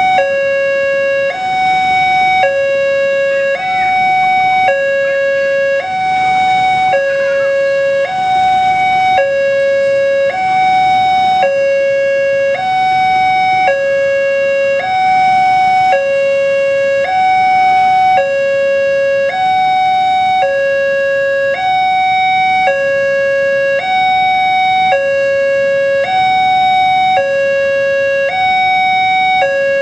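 Railway level-crossing warning alarm sounding continuously, a higher and a lower tone alternating evenly about every 0.7 s. It is the signal that the crossing is closed for an approaching train.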